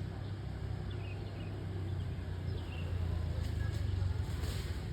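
A steady low motor hum, with faint short chirps above it and a brief hiss near the end.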